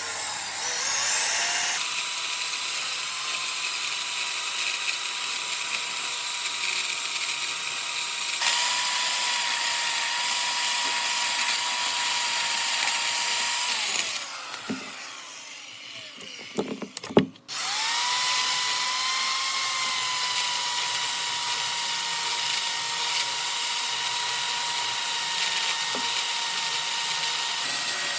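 Handheld electric power tool working wood: its motor spins up to a steady high whine, winds down about halfway through with a few knocks, then spins up again and runs on.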